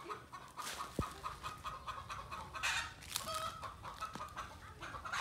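Chickens clucking in a series of short calls, with a single sharp knock about a second in.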